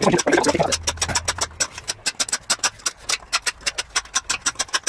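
A hand file scraping along a wooden axe handle in quick, even strokes, several a second, shaping the handle to fit the axe head's eye.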